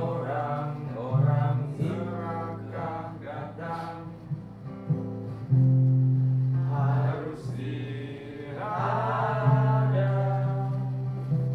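Live acoustic folk-pop song: two acoustic guitars strumming and picking, with steady low notes, and a voice singing over them. Fresh chords come in strongly about a second in, again around five and a half seconds and near nine seconds.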